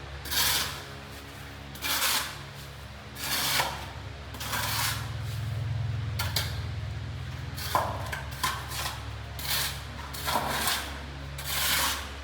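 Repeated rubbing or scraping strokes, about one every second or so, each a short rough swish, over a steady low hum.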